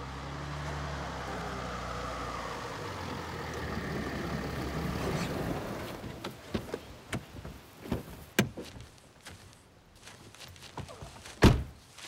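A car pulls up and stops. It is followed by scattered clicks and knocks, and a car door shuts with a heavy thud near the end.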